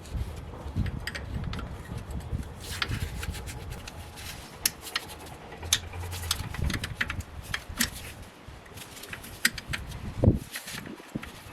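Irregular metallic clicks, clinks and knocks of hand tools and drum-brake parts being worked on and handled, with one heavier thump about ten seconds in.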